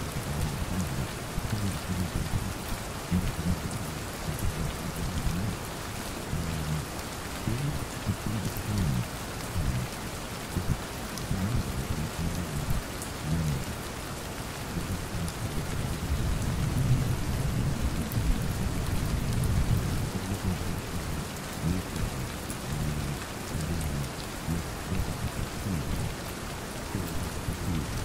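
Steady rain falling, with a low rumble of thunder underneath that grows louder a little past the middle.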